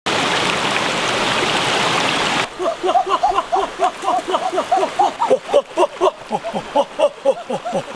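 Stream water rushing over rocks, cut off suddenly about two and a half seconds in. Then a quick run of short, high voice sounds, about four or five syllables a second, like children shouting or laughing.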